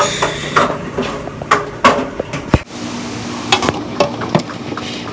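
Knocks and clinks of dishwashing at a kitchen sink, a metal baking pan being handled and scrubbed.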